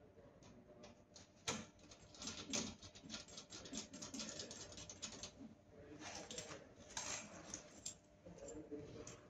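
Cable connectors, plastic tubing and fittings being handled and fitted at a UV inkjet printer's metal panel, giving faint irregular small clicks and rattles.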